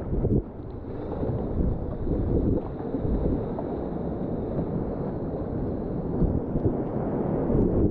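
Whitewater of the White Salmon River rushing past a kayak, heard as a steady low rumble with wind buffeting the microphone.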